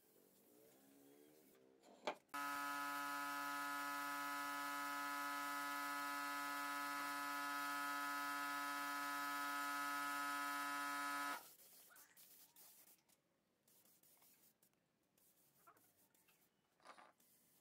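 Compressed-air spray-finishing rig running with a steady buzzing hum and hiss. It starts suddenly just after a click about two seconds in and cuts off suddenly about nine seconds later, leaving only faint ticks.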